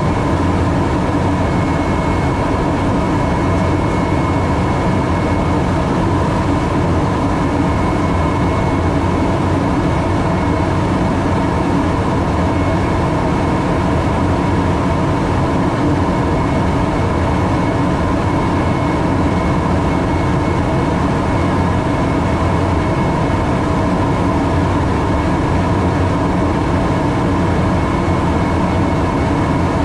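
Steady noise in an airliner's cockpit on descent toward landing: air rushing past the windscreen over the hum of the engines, with a thin high whine held throughout.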